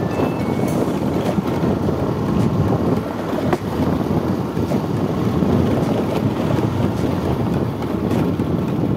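Motorcycle riding along a gravel track: steady rush of engine, tyres on loose stones and wind buffeting the microphone, with a single sharp knock about three and a half seconds in.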